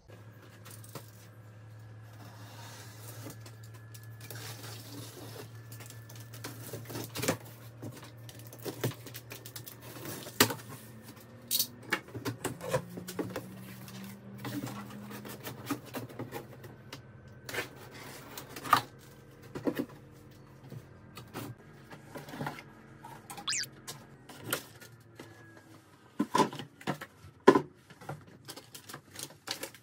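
A large cardboard shipping box being opened and handled: irregular knocks, taps and rubs of cardboard flaps and packing, over a low steady hum.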